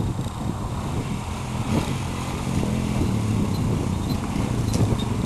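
ATV engine running, its pitch wavering up and down a little in the second half as it is revved.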